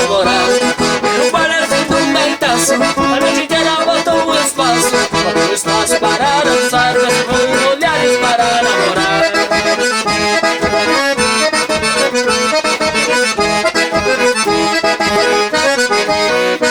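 Accordion playing an instrumental vaneira over a steady dance beat, with no singing.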